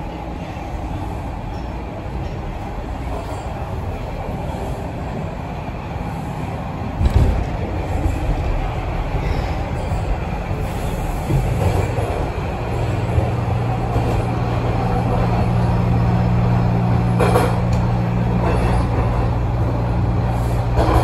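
Toronto Rocket subway car running through the tunnel, heard from inside the car: a steady rumble of wheels on rail with a thump about seven seconds in. About halfway a steady low hum sets in and holds as the train nears the next station.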